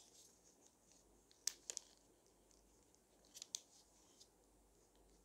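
Origami paper crinkling faintly as a fold is collapsed and pressed by hand, with a few sharp crackles about a second and a half in and again around three and a half seconds in, over near silence.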